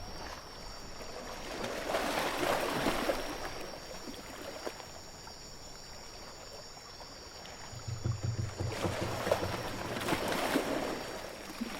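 Ocean waves washing in and out as added sound effects, swelling twice, with a low rumble about eight seconds in.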